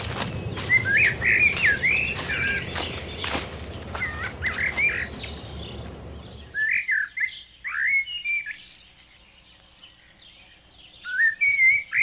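Birds chirping in short, looping calls over footsteps in a rustling forest background, the steps coming roughly once a second. About six and a half seconds in, the footsteps and rustling stop and only scattered bird chirps remain.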